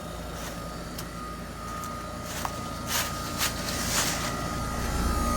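A Trane XR15 3-ton heat pump running in heat mode: a steady hum from its Climatuff reciprocating compressor and outdoor fan, with a steady tone over it. A few faint clicks are heard, and it grows a little louder near the end.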